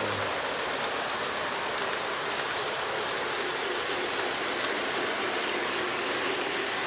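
Lionel O-gauge model train running on the layout's track: a steady rolling noise of metal wheels on the rails as a freight train of boxcars passes close by.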